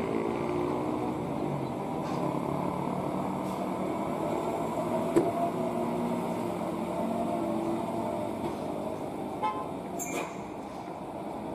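Diesel engine of a Mitsubishi Fuso cargo truck loaded with coal, running steadily under load as it crawls around a hairpin bend. A single sharp knock sounds about five seconds in.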